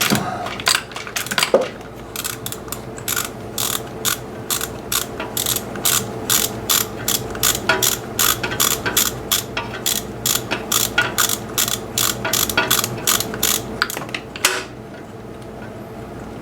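Socket ratchet clicking in a steady run of strokes, about two to three clicks a second, as a 10mm nut is backed off a stud. The clicking stops about two seconds before the end, leaving a faint low hum.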